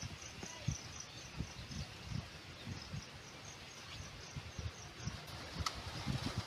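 Rural outdoor ambience: a short high chirp repeated about three times a second, fading out after about three and a half seconds, over a steady hiss with scattered soft low thumps.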